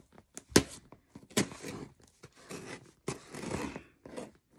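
Cardboard box and packaging being handled: a few sharp knocks and taps, the loudest about half a second in, with rustling between them.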